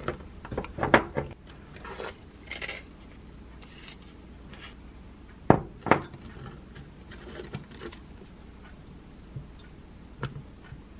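A small spatula scraping thick yogurt across crisp toast biscuits and knocking against the dishes: a cluster of scrapes and taps at the start, two sharp clicks about half a second apart near the middle, then a few lighter taps.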